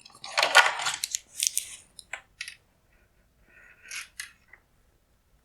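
Wiring harness being lifted out of a plastic headlight housing: a scraping rustle of plastic on plastic for about a second and a half, then a few light clicks and taps, and a softer rustle with more clicks near the end.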